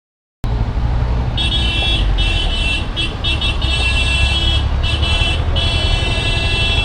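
Bus horn honking again and again, about six long blasts with short gaps, over a steady low rumble of traffic in a jam.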